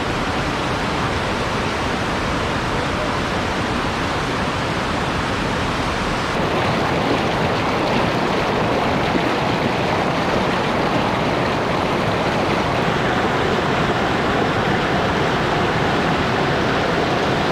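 Battle Creek rushing loudly and steadily in heavy snowmelt flow, a constant roar of fast water.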